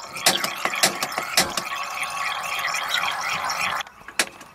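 Campervan gas stove burners lit and hissing, with a quick run of sharp clicks and crackles over the first second and a half, as the stove is burned to dry it out. The hiss drops away sharply near the end, followed by one last click.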